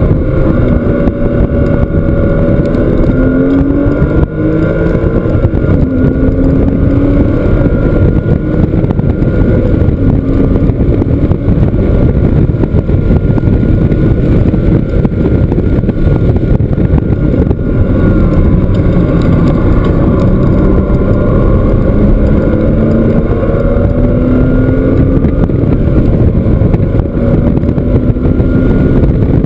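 Porsche flat-six engine driven hard at track speed, its pitch rising and falling again and again with acceleration, shifts and braking, over loud wind and road noise.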